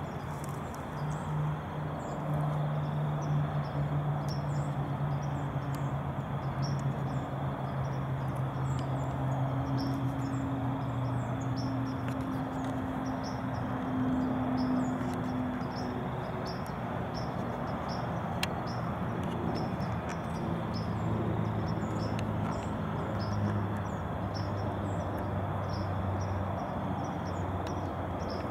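Outdoor field ambience: insects chirping in quick repeated pulses over a constant hiss. Underneath runs a low steady hum that changes pitch a few times.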